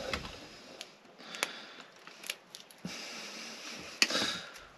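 Welded metal floor piece being lowered and worked into place against a wooden boat's frames: scattered light clicks and knocks with some scraping, and the loudest knock about four seconds in.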